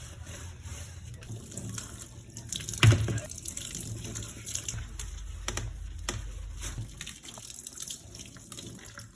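Tap water running into a sink during washing, with scattered clicks and clatter of items against the sink. One louder knock comes about three seconds in.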